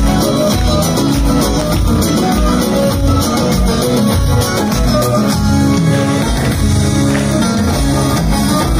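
Live amplified Turkish folk music, an instrumental introduction led by a plucked bağlama (saz) over a steady low beat.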